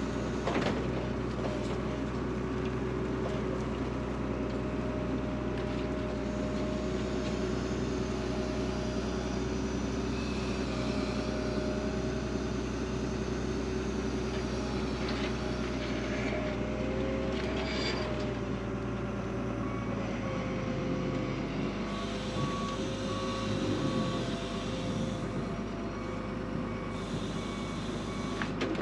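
Loader's diesel engine running steadily as the machine moves and works, with a whining tone that wavers in pitch. A reversing alarm beeps at an even rate through the last third. A sharp knock comes right at the start.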